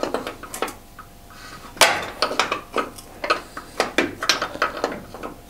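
Steel spanners clinking and tapping against the bolt of a car's upper wishbone bush and against each other as the bolt is worked loose, a string of sharp metallic clicks, the loudest about two seconds in.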